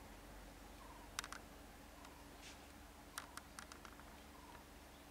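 Near silence with a few faint, sharp clicks: a short group of three about a second in, and a quicker run of about six a little after three seconds.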